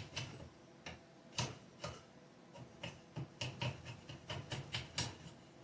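Irregular light clicks and knocks, two or three a second, from hand work on the wooden axe handle as it is shaved to fit the axe head.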